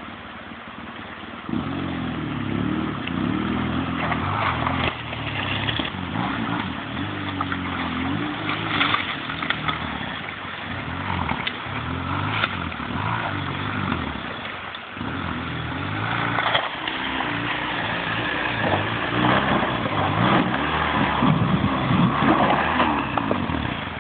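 Dual-sport motorcycle engine revving up and down under load as the bike is ridden through a shallow, rocky river against the current. The engine note rises loudly about a second and a half in, dips twice, and falls away near the end.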